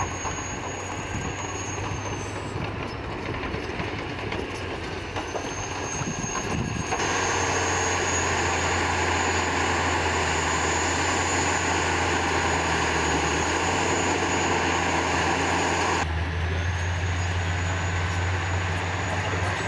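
Heavy tracked bulldozer's diesel engine running steadily with a high thin whine over it, together with the noise of its running gear. The sound jumps abruptly to a louder, fuller mix about seven seconds in and changes sharply again near sixteen seconds.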